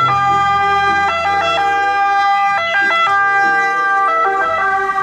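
Two-tone siren of an Italian ambulance, switching back and forth between a high and a low note.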